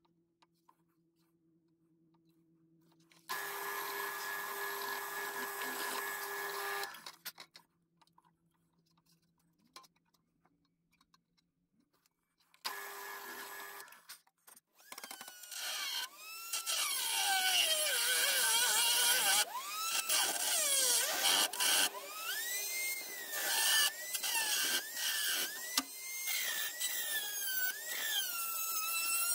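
Bench drill press running, its bit cutting through copper sheet in a loud spell from about 3 to 7 seconds in and again briefly around 13 seconds, with the motor humming steadily in between. From about 15 seconds a rotary tool with a small cutoff disc cuts the copper sheet, a loud high whine whose pitch keeps rising and falling as the disc bites.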